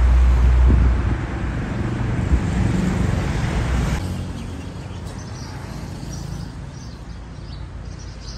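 Outdoor wind buffeting the microphone with road traffic noise. It drops to a quieter hiss about four seconds in, where the shot changes.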